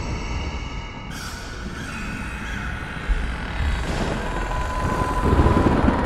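Horror-ambience sound design: a deep rumble with eerie sustained tones layered over it. A hissing swell comes in about a second in, a thin steady tone joins later, and the low rumble grows louder near the end.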